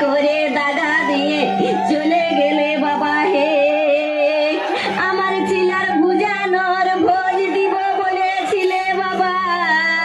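Music with a woman's singing voice sliding and wavering in pitch, over a steady low drone.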